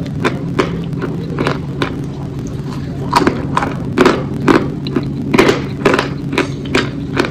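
Close-up chewing of a soft boiled dumpling: wet mouth and lip-smacking sounds, about two or three a second, growing louder from about three seconds in, over a steady low hum.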